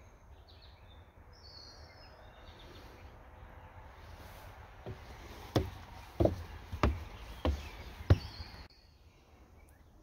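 Footsteps on wooden boardwalk steps: about six heavy treads a little over half a second apart, starting about halfway in, over steady outdoor background with a couple of short bird chirps.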